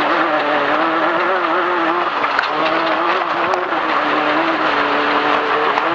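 Off-road race vehicle driving on a dirt trail, heard from a hood-mounted camera: the engine runs at fairly steady revs with small rises and dips, under a constant rushing noise.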